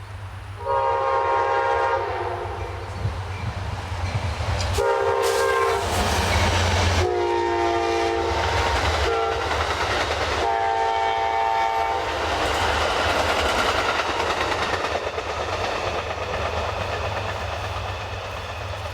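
Amtrak passenger train's locomotive horn sounding four blasts, the third the longest, loud enough to overload the camera's built-in microphone. It is followed by the steady noise of the train passing on the rails.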